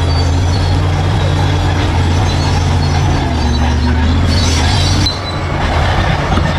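Large bulldozer's diesel engine running steadily. About five seconds in, the sound dips briefly and then builds back up.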